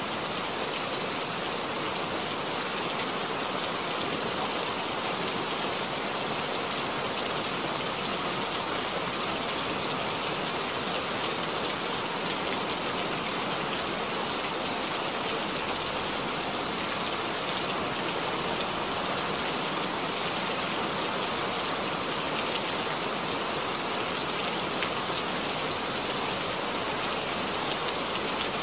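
Steady rainfall: an even hiss of raindrops, unchanging in level.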